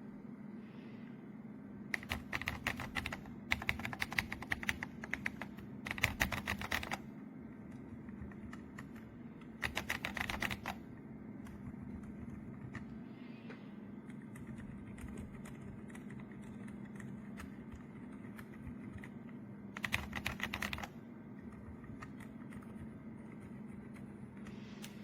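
Typing on a Royal Kludge S98 mechanical keyboard with tactile switches and PBT keycaps: several bursts of rapid keystrokes, each about a second long, with fainter scattered key presses between them. A low steady hum runs underneath.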